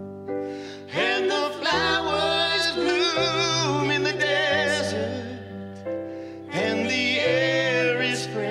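A slow, gentle song: a singer holds long, wavering notes with no clear words over sustained keyboard chords and held bass notes. The voice drops out for a moment about five seconds in, then comes back.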